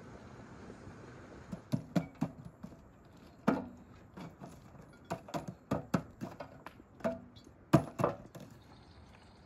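Long metal tongs knocking and breaking up burning logs and embers in a metal mangal brazier: a string of sharp, irregular knocks and cracks, the loudest about two seconds in and near the end.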